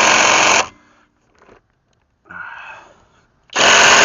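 VTEK V6309R cordless impact wrench hammering on a tight lug nut, stopping about a second in and starting again near the end, with a brief faint sound in the pause. The nut is one the wrench struggles to break free.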